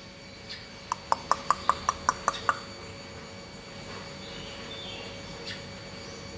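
Caged black-naped oriole giving a rapid run of about nine short, sharp notes, roughly six a second, starting about a second in.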